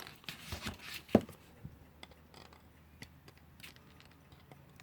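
Small clicks and rustling from alarm clock parts being handled, with one sharp click about a second in.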